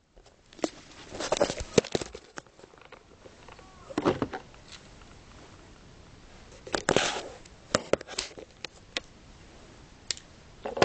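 Handling noise: scattered plastic clicks and rattles, bunched in short clusters about a second, four seconds and seven seconds in.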